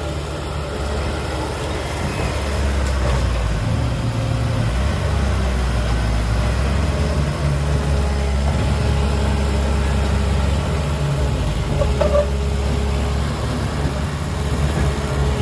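Heavy diesel engine running steadily, its note shifting up and down a few times, with a short knock about twelve seconds in.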